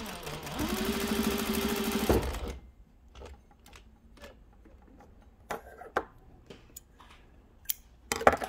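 Juki DDL-8700H heavy-duty industrial single-needle lockstitch machine sewing through thick fleece, running at a steady speed. It slows and picks up again just as it starts, and about two seconds in it stops with a knock. After that come faint handling clicks, and a short cluster of clicks near the end.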